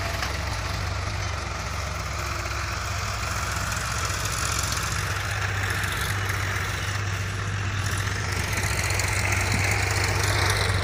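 Diesel tractor engine running steadily under load as it pulls a cultivator through the soil, a low, even drone.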